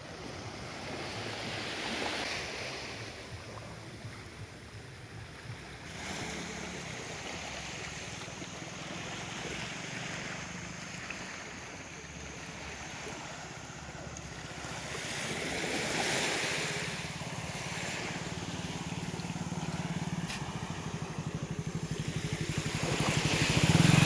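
Small sea waves washing up the beach, swelling and fading every few seconds. A low engine hum builds underneath and grows louder near the end.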